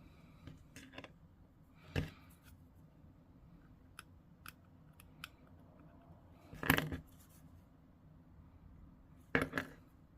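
Sprue cutters snipping plastic miniature parts off a sprue: a sharp snip about two seconds in, a louder one past the middle, and two quick snips near the end, with a few light plastic clicks between.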